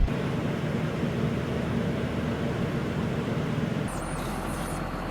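A work truck's engine running steadily with a low hum. The sound changes a little about four seconds in.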